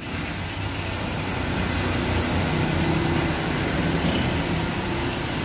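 A motor running steadily, a low drone with a wavering hum, under an even hiss.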